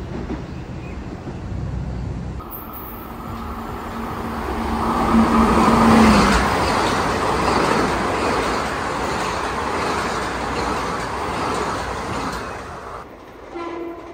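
Metro-North M7A electric multiple-unit train approaching and passing close by, with a steady whine that swells to a peak about six seconds in. The whine gives way to a broad rush of wheel and rail noise as the cars go by, which cuts off abruptly near the end.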